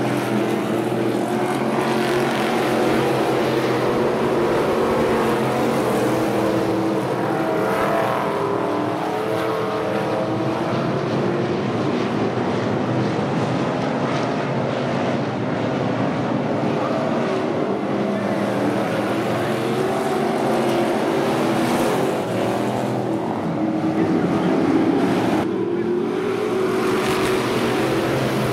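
A pack of street stock race cars running laps on a dirt oval, several engines overlapping in a steady, loud blend at racing speed.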